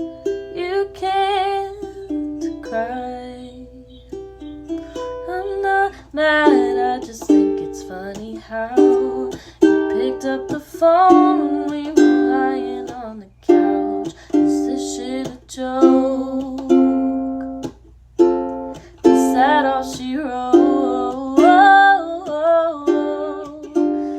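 Ukulele strummed and plucked in a steady rhythmic chord pattern, with a woman's voice singing a melody over it.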